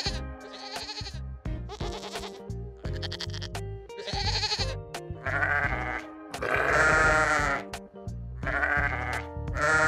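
A goat bleating in short repeated calls, then from about five seconds in a sheep bleating several times in longer, lower calls, over background music.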